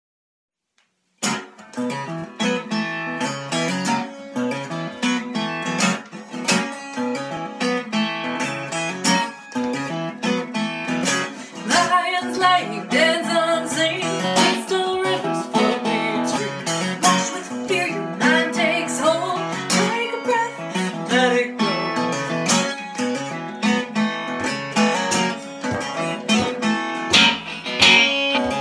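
Acoustic guitar being strummed, starting suddenly about a second in after silence, with a woman singing over it.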